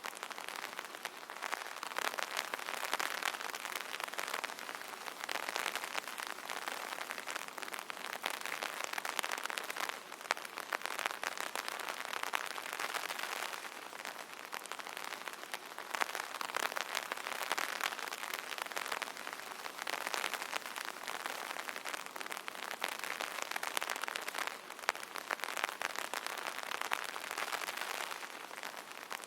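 Rain falling on an umbrella: a dense patter of drops tapping on the canopy, swelling and easing every few seconds.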